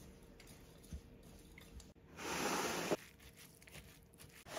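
Spoon stirring a wet mix of sesame, pumpkin and chia seeds in a glass bowl, making a gritty, crunchy scrape. It comes once about two seconds in, for under a second, and again near the end.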